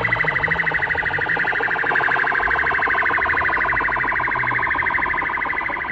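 Electronic alarm tone pulsing rapidly and evenly, about a dozen pulses a second, in a siren-like way, with a low rumble underneath.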